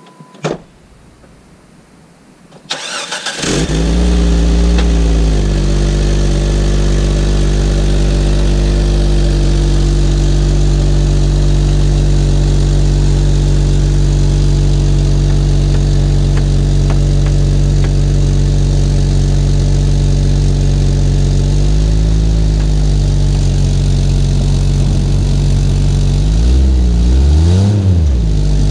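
A thump, then a Jeep Grand Cherokee's engine starts and runs steadily while it pulls on a magnet-fishing line. Near the end it revs up and down.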